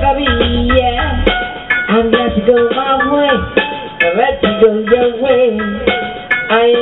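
A woman sings reggae live into a handheld microphone over a backing track. The deep bass drops out about a second in, leaving the voice and higher parts.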